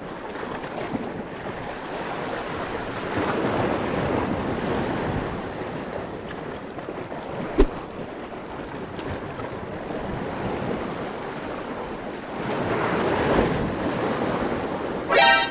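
Sea waves surging and breaking against a rocky shore, with wind buffeting the microphone. The surf swells louder twice, a few seconds in and again near the end, and a single sharp click sounds about halfway through.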